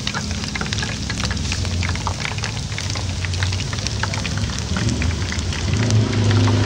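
Spiral-cut tornado potatoes deep-frying in hot oil, a dense crackling sizzle. A passing vehicle's engine hum rises near the end.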